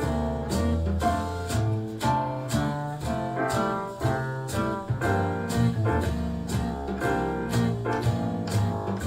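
Music with a steady beat and a prominent bass line, played back through a Sony SRS-XB22 Bluetooth speaker with Extra Bass mode on.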